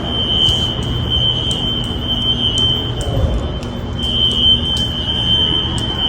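Building fire alarm horns sounding a steady high-pitched tone. It sounds for about two and a half seconds, pauses for about a second, then sounds again. This is a general fire alarm activation tripped by construction dust. A low hum runs underneath.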